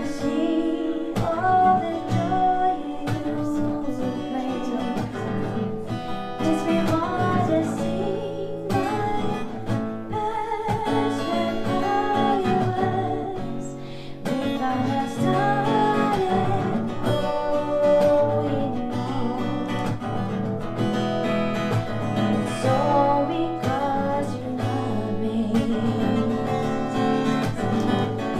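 Acoustic guitar played live, with a singer's voice over it.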